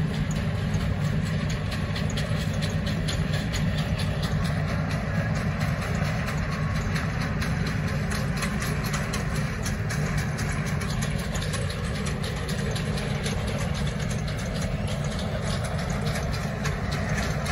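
Hitachi ZX210 amphibious excavator's diesel engine running steadily while the machine works its boom and arm.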